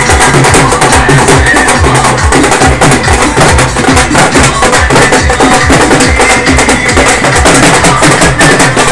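Dhol drums played loudly in a quick, steady beat, with other music over them.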